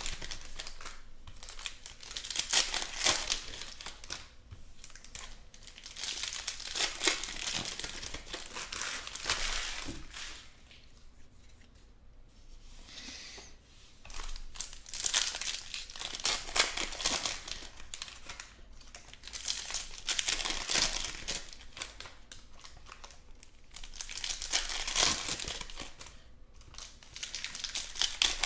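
Foil wrappers of Panini Mosaic football card packs being torn open and crinkled by hand, in repeated bursts, with a quieter spell about a third of the way through.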